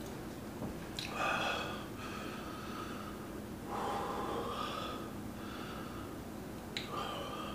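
A man breathing hard through his mouth and nose, with three heavy gasping breaths: about a second in, around four seconds in and near the end. He is panting from the burn of a Carolina Reaper–pickled egg.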